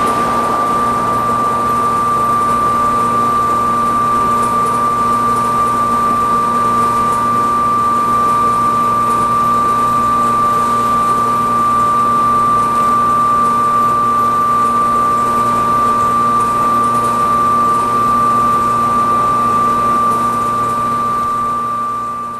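A steady, high-pitched electrical whine held on one pitch over a lower hum and a constant rush, fading out at the very end.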